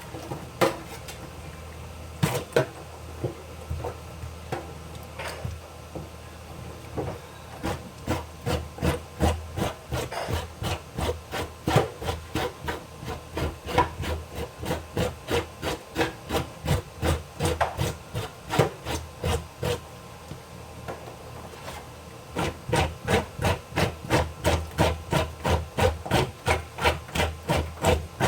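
Repeated rhythmic knocking and rubbing strokes, about two to three a second, with a short pause before a faster, louder run near the end.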